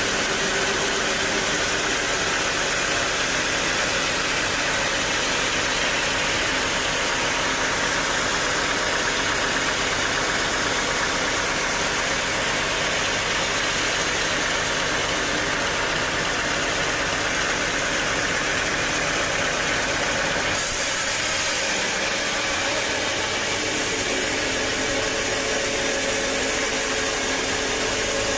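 Sawmill machinery running with a steady, loud mechanical noise. About twenty seconds in the sound changes abruptly and the low rumble drops away.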